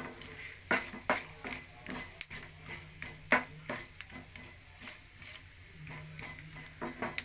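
Wooden spatula stirring and scraping peanuts, dals and cashews through hot oil in a nonstick frying pan, with irregular sharp taps and scrapes over a light, steady sizzle. This is the tempering being roasted until the cashews turn reddish.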